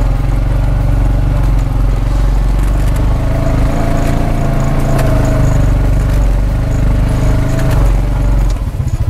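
A motor vehicle's engine running steadily while driving, heard from on board. Shortly before the end its low note breaks into a fast, even pulsing.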